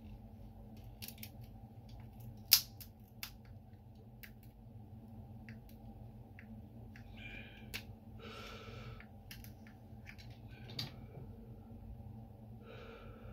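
A utility knife blade prying at the plastic shell of a BMW key fob: a scattered series of sharp plastic clicks and snaps, one much louder about two and a half seconds in, with a few short scraping sounds later on.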